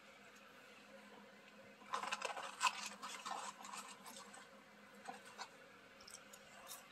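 Eating McDonald's fries close to the microphone: about two seconds of crackly, scratchy noise starting about two seconds in, then a few faint clicks.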